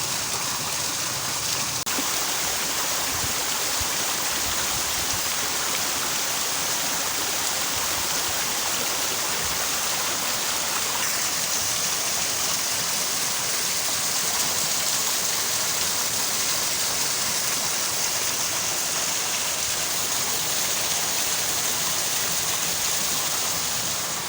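Steady rush of water from a small stream and mini waterfall, an even unbroken noise.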